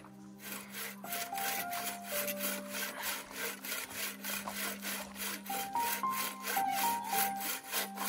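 Bow saw cutting through a log, rasping on each push and pull stroke in an even rhythm of about three strokes a second.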